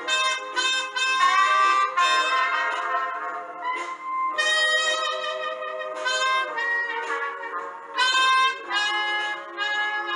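Music: a trumpet playing a slow jazz melody in held notes, with band accompaniment.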